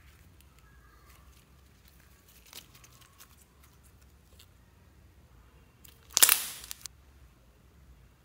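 Slime being squeezed and stretched by hand: faint sticky clicks, then a single loud burst of noise about six seconds in that lasts under a second.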